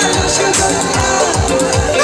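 Live stage band music played loud over a sound system, with a steady drum beat under a sung melody.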